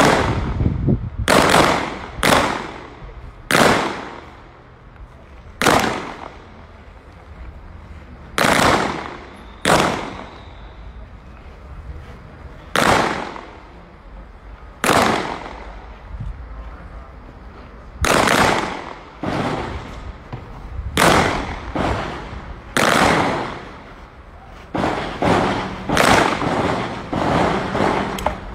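Gunshots from a firing line of several shooters, about two dozen sharp reports at uneven intervals, each trailing off in a short echo. Near the end the shots come closer together, in quick pairs.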